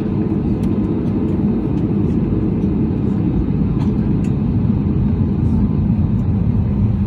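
Cabin noise of an Airbus A320neo taxiing: a steady low rumble from its Pratt & Whitney PW1100G geared turbofans at taxi power and the wheels rolling over the taxiway, with a constant low hum.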